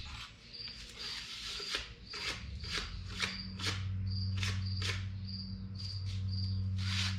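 Emery cloth rubbed back and forth by hand, about two strokes a second, sanding old oil pan gasket material off a Chevy 350's sealing surface. A cricket chirps steadily throughout, and a low steady hum comes in about three seconds in.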